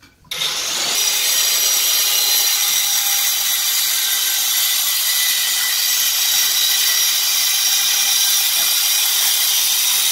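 Handheld electric stone cutter sawing through a black granite strip: a loud, steady high-pitched whine and grinding hiss that starts suddenly just after the start and holds at full cut.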